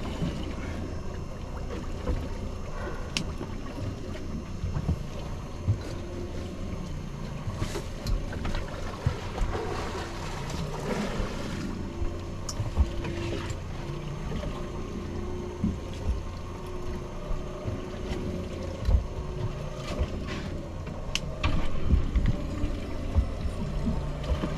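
Fishing boat on the water: a steady low rumble with wind on the microphone, and scattered knocks and clicks on deck.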